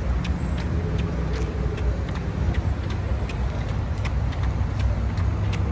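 Steady low rumble of wind and street traffic on a moving phone microphone, with scattered light clicks and knocks from jogging.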